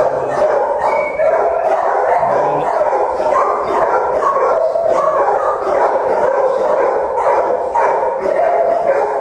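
Many shelter dogs barking at once in their kennels, an unbroken din of overlapping barks.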